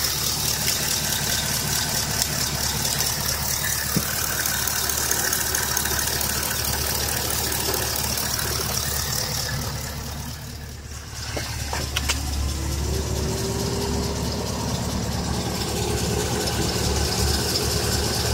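Pontiac G8 GT's LS V8 idling steadily with a tick that the owner suspects is a lifter tick. About twelve seconds in, a whine rises in pitch and then holds steady over the idle.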